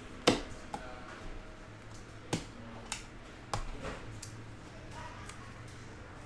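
Light handling noises of trading cards and clear plastic card holders: a handful of short clicks and rustles, the sharpest about a quarter second in.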